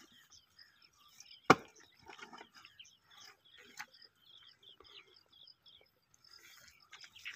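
A hoe blade chopping into wet mud: one sharp strike about one and a half seconds in and a lighter one near four seconds, with faint scraping and clods moving between.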